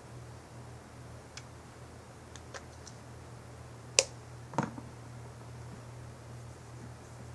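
Small clicks and knocks from handling a squeeze tube of liquid foundation: a few light ticks, a sharp click about four seconds in and a duller knock just after. A steady low hum runs underneath.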